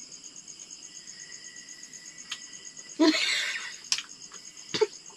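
Crickets chirping in a steady, fast, even high trill, with a brief clatter about three seconds in and a few sharp clicks near the end.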